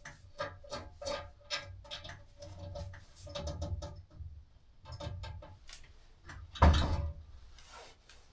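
Repeated clicks, taps and scraping of hand work on a ceiling light fixture, with one louder knock about two-thirds of the way through.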